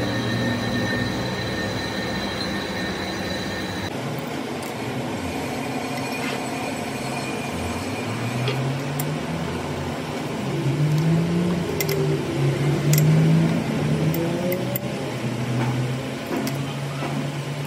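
Steady workshop machinery noise with a few sharp metal clinks as a tool holder is clamped into a lathe's four-way toolpost and tightened with a T-wrench. A low droning tone wavers up and down through the second half.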